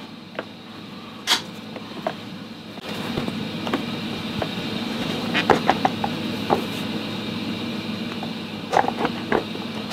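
Motorcycle front seat being lowered and pressed down onto its mounts: a few scattered knocks and clicks of the seat base, with a cluster in the middle and another near the end. In this low position the seat is catching on the power distribution module fitted beneath it.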